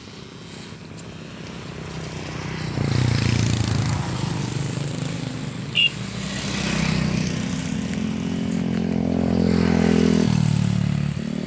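A small engine running, growing louder and shifting pitch a few times as it comes and goes, with one brief high tone about halfway through.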